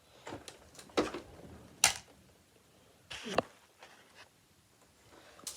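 Toys and dollhouse pieces being handled and picked up: a handful of separate knocks and clacks, the sharpest about two seconds in and a small cluster a little past three seconds.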